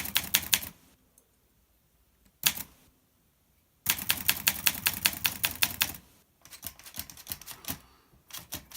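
Olympia SM2 portable typewriter being typed on: fast runs of key strikes, about nine a second, broken by short pauses, with a single short burst in the first pause and a softer run near the end.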